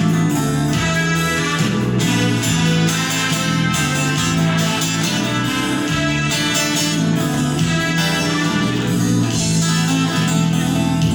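Instrumental introduction to a song, led by guitar and playing steadily at full level before the vocal comes in.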